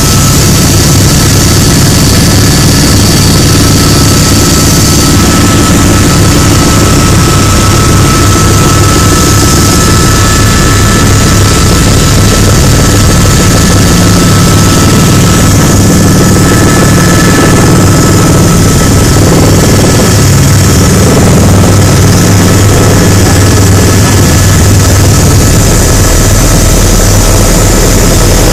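Helicopter heard from inside the cabin while descending to land: loud, steady turbine whine over the rapid low beat of the rotor.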